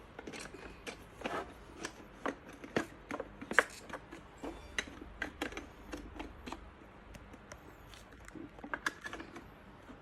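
Irregular light clicks and knocks as the parts of a shopping trolley are handled and fitted together.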